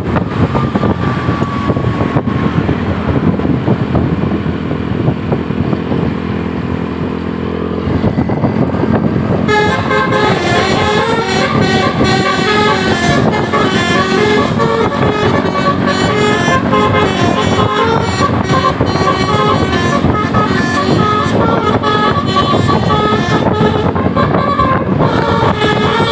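Heavy vehicle engine noise. About ten seconds in, a tour bus's Basuri telolet horn starts playing a melody of quickly changing notes, which keeps going.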